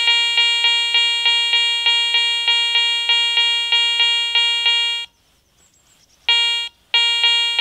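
Garrett ACE 400i metal detector giving its target tone on a dog tag held over the Cors Cannon search coil: a steady beeping of about five pulses a second. About five seconds in it falls silent, then sounds again in two short bursts near the end.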